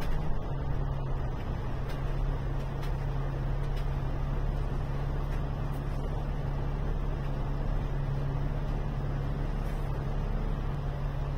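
Alexander Dennis Enviro 500 MMC double-decker bus running, heard inside the cabin from the upper deck. The engine's steady low hum drops slightly in pitch about half a second in, then holds one tone under a rumble of road noise as the bus moves slowly.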